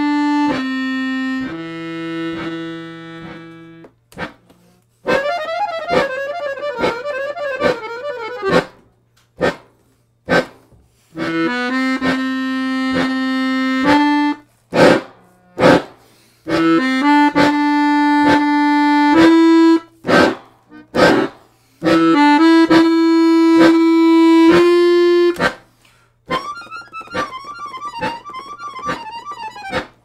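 Piano accordion playing held chords broken up by many sharp clicks, with dense, dissonant note clusters about five seconds in and again near the end.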